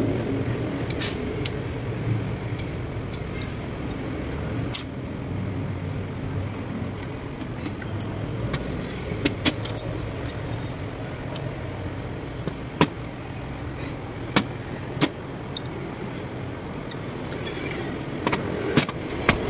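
Scattered sharp metallic clicks and clinks of hand tools against turbocharger parts as a diesel turbo is taken apart by hand, a dozen or so over the stretch with the loudest in the second half, over a steady low background hum.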